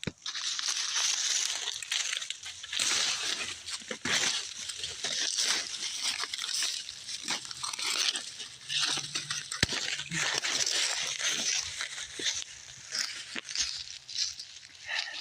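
Corn leaves and stalks rustling and crunching underfoot as someone walks through a cornfield, in uneven steps with a few sharper snaps.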